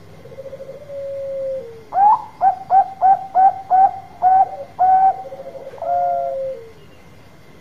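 Zebra dove of the Bangkok singing line (perkutut Bangkok) singing: a soft rolling trill, then a run of about eight short, quick coos, ending on a longer note that falls away.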